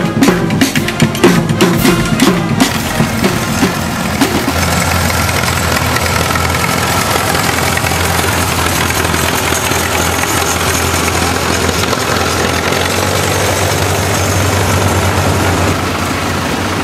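A marching band's drums and horns over the first couple of seconds, then the steady running of old International Harvester Farmall tractor engines driven slowly past in a parade, a low even drone that holds until near the end.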